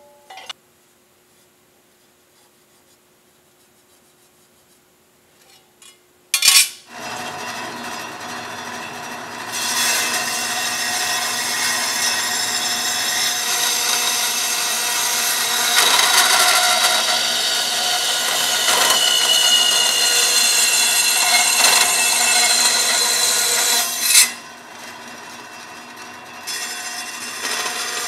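Metal-cutting vertical bandsaw starting with a clunk about six seconds in, then its blade cutting through square steel tubing in a steady hissing grind that grows louder as it bites about three seconds later. Near the end the cutting sound drops briefly, then picks up again.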